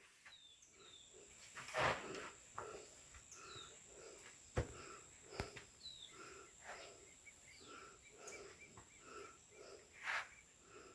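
Birds calling: short falling whistles over a low call repeated about twice a second, with a steady high-pitched tone underneath. Two louder rushing swells come about two seconds in and near the end.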